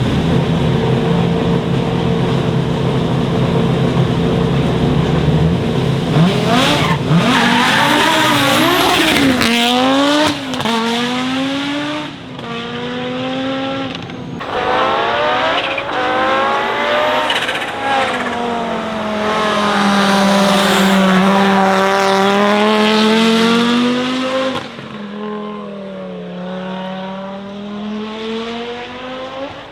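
Audi Sport Quattro S1 E2's turbocharged 2.1-litre five-cylinder engine holding steady revs, then accelerating hard: the pitch climbs and drops sharply again and again through the gear changes, with short cracks at the shifts. Near the end it gets quieter as the car pulls away.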